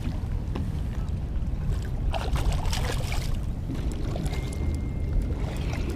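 A hooked freshwater drum splashing at the water's surface beside the boat, mostly about two to three seconds in, over a steady low rumble.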